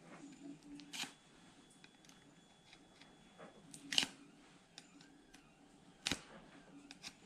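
Sharp metallic clicks and taps of steel hand tools being handled: three clear clicks about a second in, four seconds in (the loudest) and six seconds in, with smaller ticks between.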